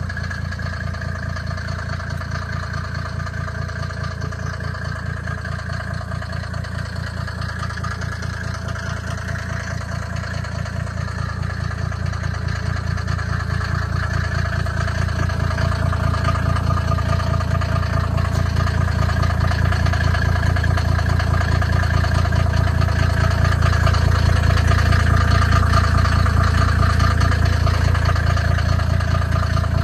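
Mercedes G-Class W460 turbodiesel engine idling steadily with an even diesel pulse, getting louder about halfway through as it is heard from beneath the rear of the vehicle.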